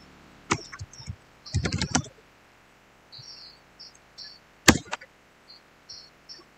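A few scattered computer keyboard clicks, one sharp key press about three quarters of the way through, over faint, irregular high-pitched chirps in the background.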